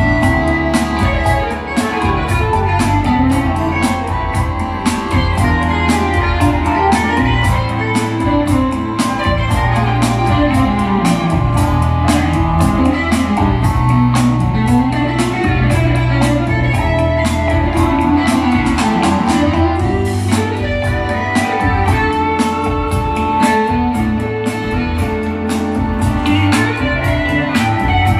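Live band playing a mid-tempo tune: electric guitar over bass and drums keeping a steady beat.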